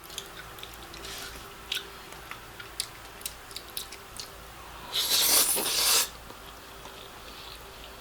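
Close-miked chewing of black bean noodles, with scattered wet mouth clicks. About five seconds in comes a louder, noisy mouth sound lasting about a second.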